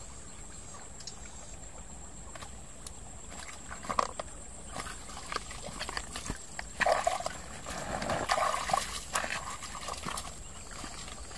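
Shallow stream trickling, with irregular handling noises from about four seconds in that build to a denser run of louder bursts a little past halfway. These are plastic-bag crinkling and knocks as the catch and gear are handled.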